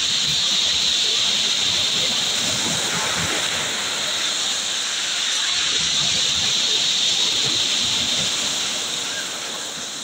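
Small sea waves breaking and washing up over a pebble beach among pier pilings, a steady hissing rush of surf that eases slightly near the end.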